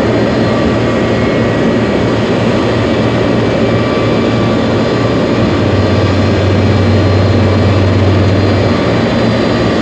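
Airbus A310-304's General Electric CF6-80C2 turbofan engines running loud and steady. A deep hum swells for about three seconds past the middle, then eases.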